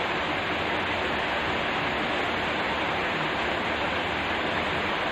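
Steady rushing hiss, even in level throughout, with no other sound standing out.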